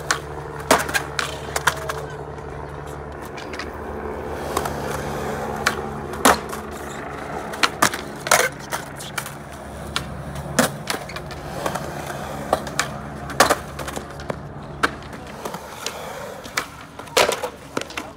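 Skateboards rolling on concrete, with a dozen or so sharp clacks of boards popping and landing on the ground and ledges.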